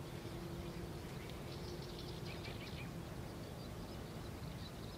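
Outdoor ambience with a low, steady rumble and a faint steady hum, and small birds chirping briefly about one and a half to three seconds in.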